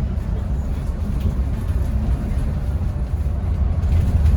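Steady low rumble of a bus's engine and road noise heard from inside the moving bus.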